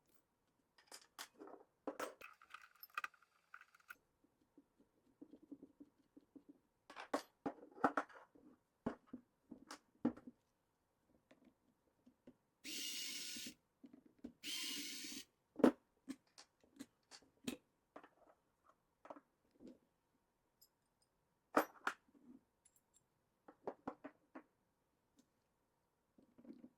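Clicking and clinking of small metal parts and tools as an electric pruning shear's blade assembly is handled and taken apart. There are two short hissing bursts about halfway through.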